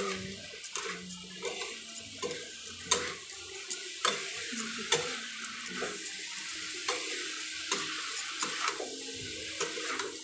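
Vegetables frying in a metal kadai: a steady sizzle, with irregular sharp clicks and scrapes of a utensil stirring against the pan.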